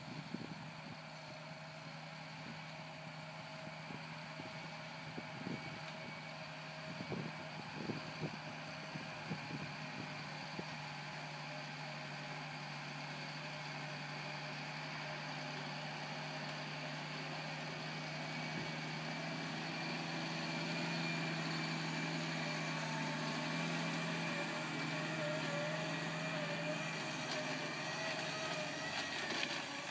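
John Deere 8245R tractor's diesel engine running steadily under load while it pulls a Stoltzfus RC-1516 lime spreader that is spreading ag lime. The sound grows gradually louder as the machine comes closer.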